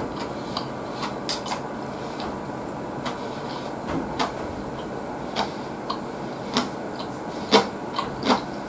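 A man chewing a mouthful of lettuce and salad with his mouth closed: sparse, irregular wet mouth clicks and crunches, about one a second, over a steady background hiss.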